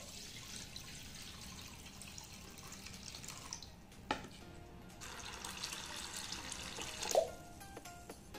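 Water pouring into a steel bowl of sago pearls being rinsed, in two stretches with a short pause and a knock between them. The water is changed to wash out the starch, and background music plays faintly.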